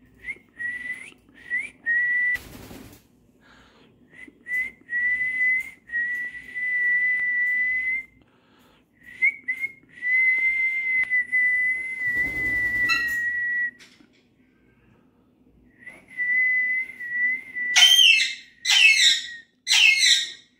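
Alexandrine parakeet whistling a steady, high single note, first in short chirps and then in long held whistles of a few seconds each. Near the end come several harsh, loud squawks. Two brief noisy bursts come in between.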